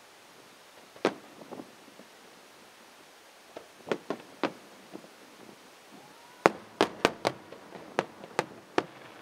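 Fireworks display: aerial shells bursting with sharp bangs, one about a second in, a few more around four seconds, then a quick run of bangs in the last three seconds.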